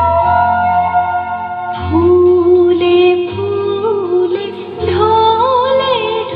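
Song with a woman singing a slow melody over sustained instrumental backing; the voice comes in about two seconds in and holds long notes with wavering ornaments near the end.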